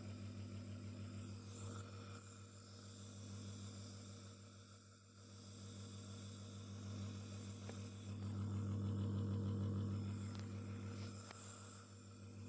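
Low steady electrical hum that swells louder for about two seconds past the middle, with a few faint clicks.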